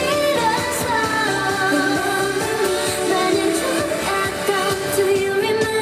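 K-pop song performed live by a girl group: female singing over a pop backing track.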